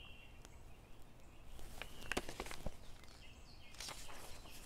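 Quiet outdoor background with a few soft clicks and rustles from a paperback book being handled and lowered, and faint high chirps.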